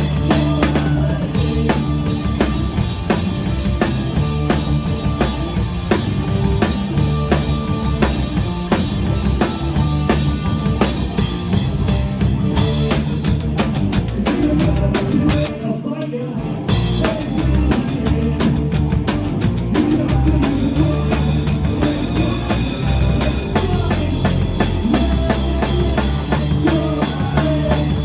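A live band playing a song with a full drum kit driving it, bass drum and snare prominent. The drums and low end drop out for about a second just past halfway, then the full band comes back in.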